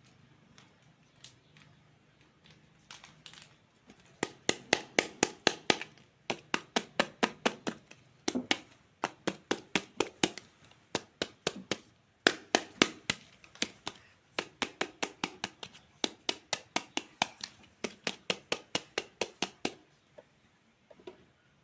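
Toy fruit being chopped with a plastic toy knife: a quick, even run of sharp clicking taps, about four to five a second, in several bursts with short pauses.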